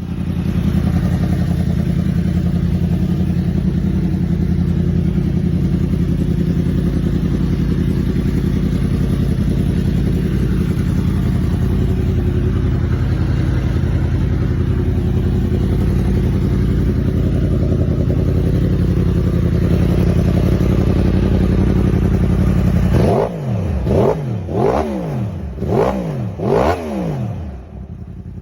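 Yamaha sport bike with a Two Brothers aftermarket exhaust idling steadily at a loud, even pitch. From about 23 seconds in it is given a quick string of throttle blips, about five revs in a row, each rising and dropping back.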